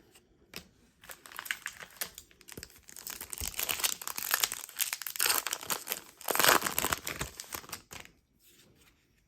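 Plastic trading-card pack wrapper crinkling as it is handled. The crackle starts about a second in and stops about eight seconds in.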